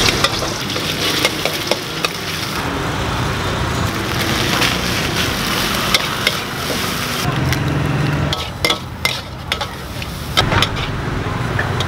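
Food sizzling in a hot wok while a metal spatula stirs it, with sharp clinks of the spatula against the pan, typical of street-stall stir-frying of rice or noodles.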